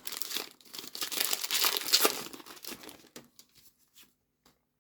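Pokémon booster pack wrapper being torn open and crinkled for about three seconds, loudest near the middle, then a few faint ticks of cards being handled.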